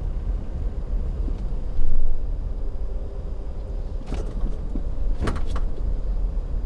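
Steady low road and engine rumble inside a moving Toyota Corolla Altis on a rough rural lane. There is a loud low thump about two seconds in, and two short sharp clicks around four and five seconds.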